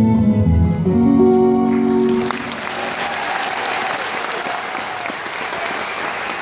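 Acoustic guitar's last chords ringing out at the end of a song. About two seconds in, the audience breaks into steady applause, which carries on to the end.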